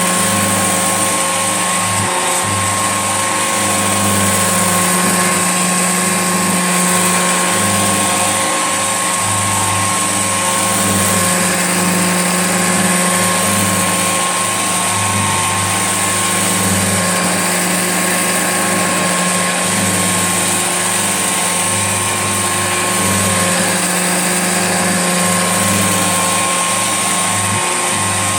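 Old Hoover Junior upright vacuum cleaner running continuously: a steady motor hum that wavers slightly, with a constant high whine on top.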